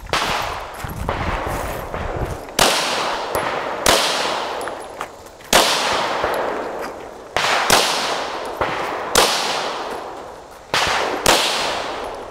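Shots from a Glock 34 9mm pistol, about seven loud cracks spaced one to two seconds apart as the shooter engages targets on a run. Each shot is sudden and fades out slowly.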